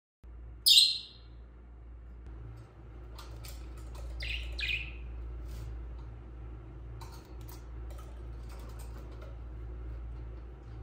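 Pet birds chirping: one sharp, loud, high call just under a second in, two quick falling calls near the middle, and scattered short chirps throughout.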